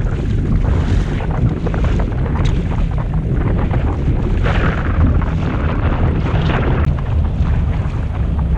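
Strong wind buffeting the microphone, with choppy water slapping and splashing against the bow of a small boat; the splashing swells up about four and a half and six and a half seconds in.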